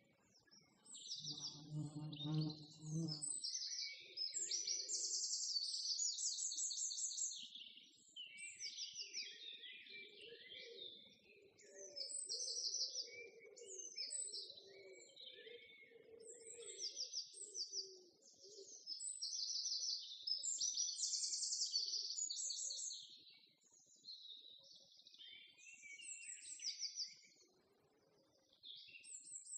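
Small birds chirping and trilling continuously, many short calls and rapid trills overlapping. A brief low hum sounds about two seconds in.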